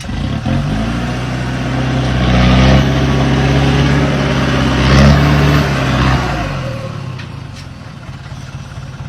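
A heavy vehicle's engine revs up, runs loud and steady for a few seconds, then winds down and fades away about seven seconds in.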